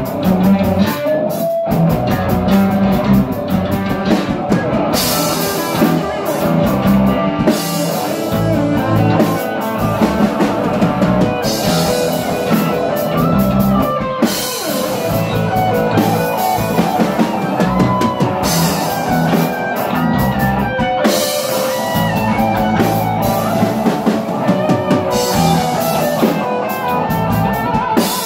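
Live rock band playing an instrumental passage: electric guitars and bass guitar over a drum kit, with cymbal crashes every few seconds.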